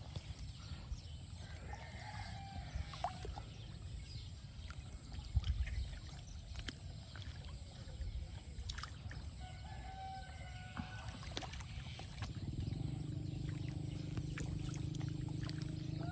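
Light splashing and sloshing of water as two otters swim in a shallow reedy pond, with a few faint bird calls in the distance. About twelve seconds in, a steady droning hum sets in and holds.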